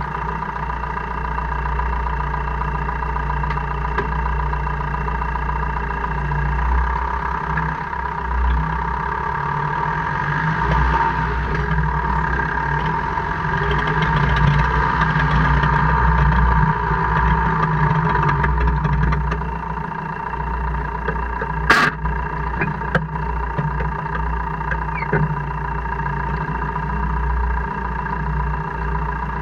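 2002 Jeep Cherokee KJ running with a steady low drone and a constant whine, with one sharp click about twenty-two seconds in and a couple of fainter ones after it. This is the gear-grinding, clicking noise that the owner hears only in 4H or 4L, never in 2H.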